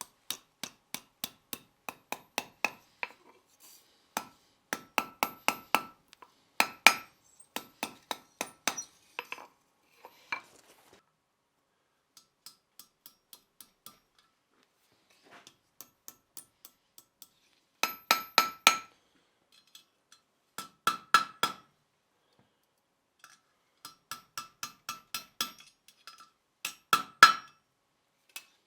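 Hand hammer striking steel on an anvil in runs of quick blows, several a second, each with a ringing metallic note, with short pauses between runs and a stretch of lighter taps midway.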